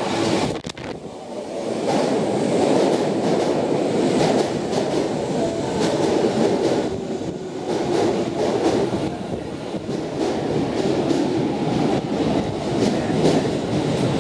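Osaka Municipal Subway Chuo Line electric train rolling slowly into the station alongside the platform. A steady running rumble with scattered clicks as the wheels pass over the rail joints.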